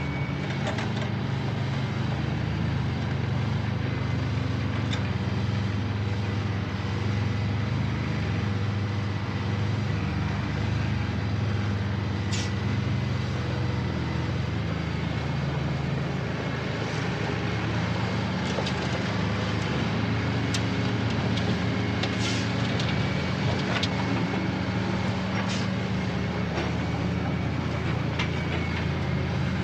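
Heavy construction machinery running with a steady low rumble, with a few sharp clanks scattered through the second half.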